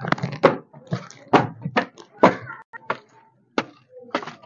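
Footsteps going up stairs: a string of uneven knocks about every half second, with a faint murmur of voices between them.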